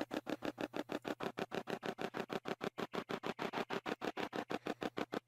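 Hack Shack spirit box (a hacked radio sweeping through stations) chopping rapidly through static, a fast even stutter of about eight or nine short bursts a second.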